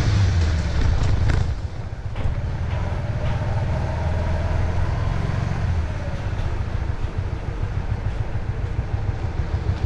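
Honda CB150R's single-cylinder engine running, its pitch rising and falling with the throttle. There is a brief drop in level about one and a half seconds in.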